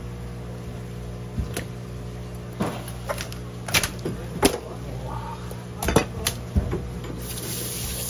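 Irregular sharp knocks of a knife and a large live olive flounder against a plastic cutting board as the fish is cut to bleed it, over a steady low hum. Near the end a stream of tap water starts running.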